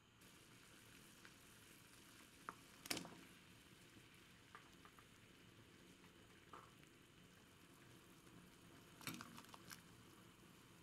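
Faint, steady sizzling of food cooking in a pan, with a few sharp clicks over it, the loudest about three seconds in and a short cluster near the end.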